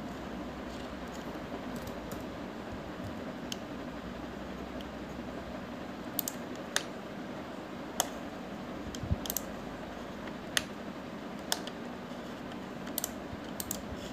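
Computer keyboard and mouse clicks: a few faint ones at first, then about ten sharp, irregularly spaced clicks in the second half, over a steady low room hiss.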